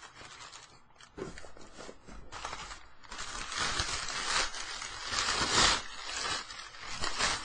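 Cardboard shipping box being handled and opened close to the microphone: rustling, crinkling and scraping of cardboard in irregular bursts, loudest a little past the middle.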